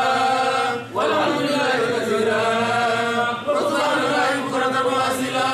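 A man's voice chanting a religious recitation in long, held, ornamented notes with sliding pitch, pausing briefly for breath about a second in and again about three and a half seconds in.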